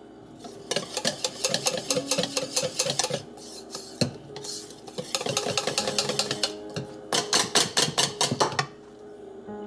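Wire whisk beating batter in a ceramic mixing bowl: the metal wires rattle and scrape against the bowl in rapid strokes. There are two long runs of whisking with a short pause near the middle.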